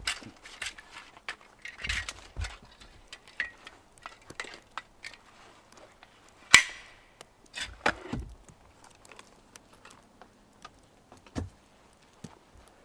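Hand tools being handled and set against a log wall: scattered clinks, knocks and rustles of metal and wood, with one sharp click about six and a half seconds in.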